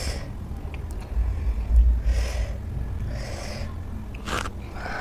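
Close-miked mouth sounds of eating sour citrus: sucking and slurping with sharp breaths drawn in about a second apart, and a short wet smack near the end. A low bump of the table or microphone comes early on and is the loudest thing.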